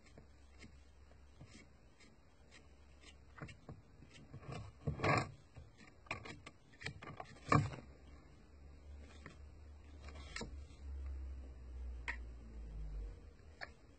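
Quiet handling sounds of a paintbrush being worked over a plastic model tank: scattered light ticks and rubbing, with two louder knocks about five and seven and a half seconds in.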